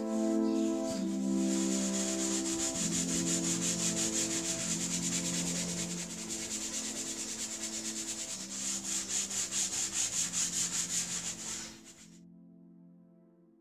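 A small brush scrubbing leather seat upholstery in quick back-and-forth strokes, about three a second, with a hissy scratch, stopping abruptly near the end. Soft background music with held chords runs underneath.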